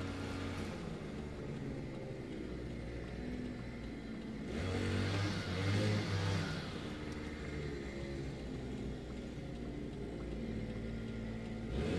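Car engine idling, heard from inside the cabin, with a brief rise in revs about five seconds in that settles back after a couple of seconds.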